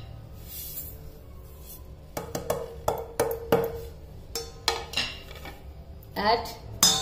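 Small plates and a bowl knocking and clinking against the rim of a stainless steel mixing bowl as spices are tipped in: a string of light knocks, each with a short metallic ring, starting about two seconds in.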